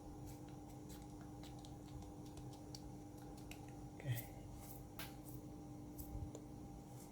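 Faint clicks and taps of hands working on a MacBook Pro's opened case and battery, with a sharper click about four seconds in, over a steady low hum.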